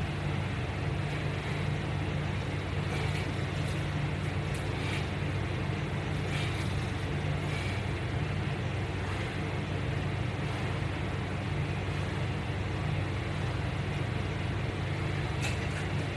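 Steady low mechanical hum, with faint soft sounds about every second or so.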